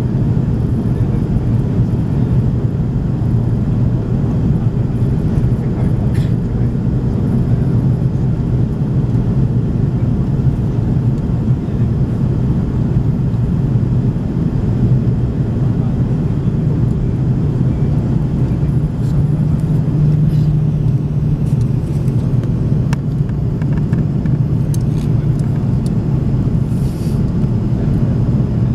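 Steady cabin noise of an Airbus A330 airliner descending on approach: engine and airflow as an even low rumble, its low hum a little stronger about twenty seconds in.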